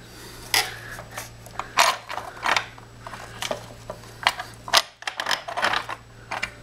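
Irregular metal clicks, clinks and knocks as the combined thermal-magnetic trip unit of an A3144 circuit breaker is worked loose and lifted off its threaded studs, with steel nuts and terminal plates knocking against the breaker's body.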